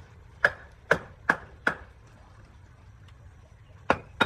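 Sharp blows striking wood, as in chopping or knocking a workpiece: four quick strikes in a row about half a second in, then two more near the end.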